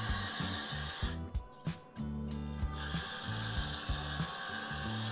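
Small motor and gearbox of a 1/18-scale Rochobby Katana RC crawler whirring with a ratcheting gear rattle as it is driven, pausing briefly about a second in.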